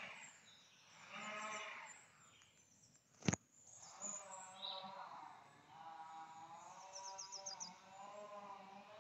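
Sheep bleating repeatedly, wavering calls of a second or more, several running together in the second half. A single sharp click about a third of the way in is the loudest sound, and a bird gives a brief quick trill near the end.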